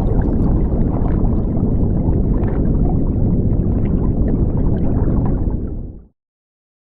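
Steady, loud low rumbling noise with faint scattered ticks, cutting off abruptly about six seconds in.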